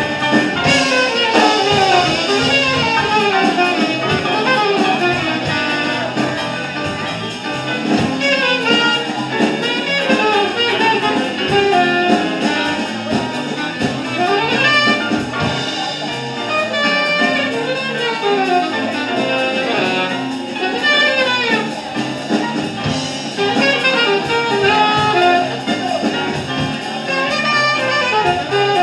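Live jazz big band playing, saxophone to the fore, with fast runs sliding up and down over the horns and rhythm section.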